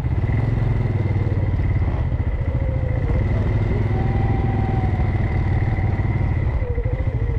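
ATV engine running steadily at low speed while riding a dirt trail, its firing pulses even throughout.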